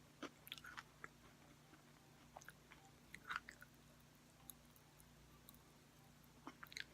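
Faint close-up chewing of a cream-filled Oreo with popping candy in it: soft mouth clicks and crackles in a few short clusters, with near silence between them.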